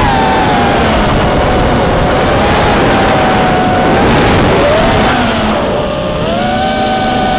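Brushless motors and propellers of a 5-inch FPV racing quadcopter (T-Motor F40 III 2306 2750KV) whining in flight over a heavy rush of wind, the pitch rising and falling with the throttle through turns and dropping briefly about six seconds in before climbing again.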